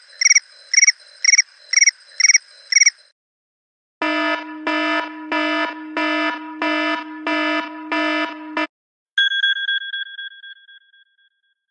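A run of electronic alarm-type signals one after another: first a quick chirping beep, repeated about two to three times a second. Then comes a buzzing ring that pulses about one and a half times a second. Last is a single two-note chime that slowly fades away.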